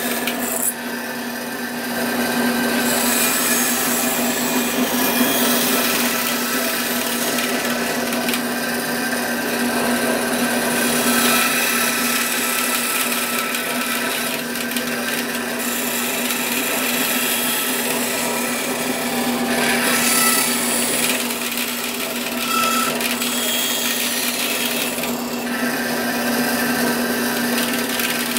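Bandsaw running with a steady motor hum, its blade cutting through material in a series of passes, the hiss of the cut rising and falling as the work is fed in and eased off.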